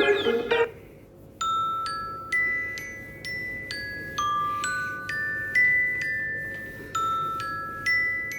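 iPad ringtone: a slow tune of single bell-like notes like a glockenspiel, about two a second, each ringing out. It starts about a second and a half in, just after the last loud chords of a different ringtone cut off.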